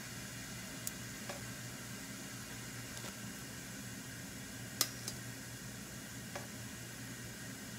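Steady faint hiss with a low hum underneath, broken by a few light clicks, the sharpest about five seconds in.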